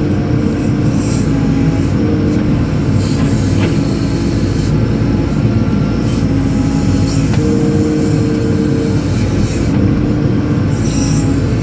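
JCB 4CX backhoe loader's diesel engine running steadily under load, with hydraulic whining tones that come and go in stretches of a second or two as the arm works.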